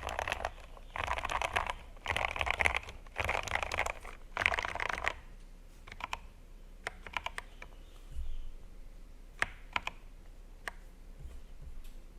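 Woye WL61 mechanical keyboard with lubed, foam-modded Outemu Black linear switches being typed on: fast runs of keystrokes for about five seconds, then single keys pressed one at a time with pauses between them.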